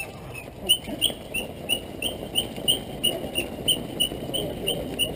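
A crowd of runners setting off together: a dense mass of footsteps and chatter, with a short high chirp repeating evenly about three times a second from about a second in.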